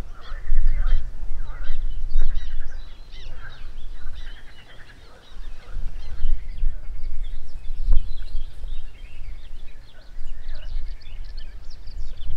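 Birds singing and calling in a busy outdoor chorus, with gusty wind rumbling on the microphone.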